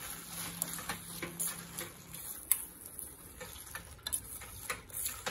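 Steel spoon stirring thick tomato jam in a stainless steel pan, with uneven clicks and scrapes of metal on metal.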